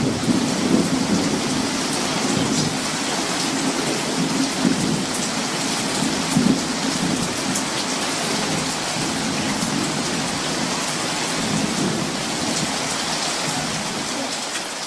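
Steady heavy rain falling, with low rolling thunder rumbling under it, strongest about the first second and again around six seconds in; the rain fades away right at the end.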